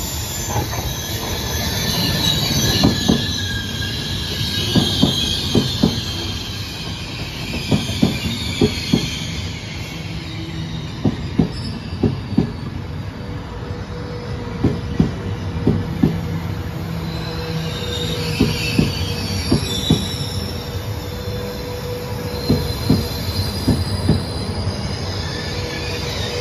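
Intercity train of UIC-Z coaches rolling slowly into the platform: wheels clacking over rail joints with squealing, the high squeal strongest at the start. About halfway through a steady tone sets in under the clacks.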